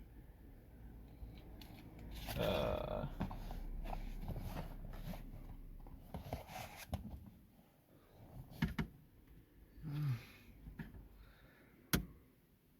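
Plastic dashboard trim being pried and worked by hand: rubbing and knocking with scattered sharp clicks, and one loud snap-like click near the end as the clips resist coming off. A brief breathy vocal noise from the person doing the work is also heard.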